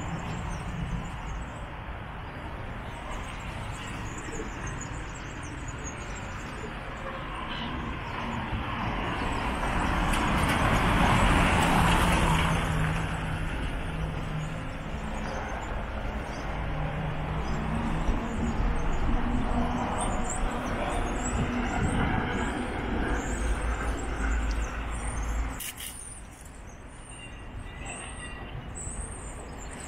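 Street traffic noise, with a motor vehicle passing that swells and fades about ten to thirteen seconds in. The noise drops sharply near the end, leaving faint bird chirps.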